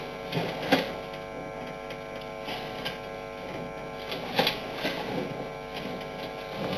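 Steady electrical hum of many tones picked up by a security camera's microphone, broken by a few short sharp clicks or knocks, the loudest about a second in and again about four and a half seconds in.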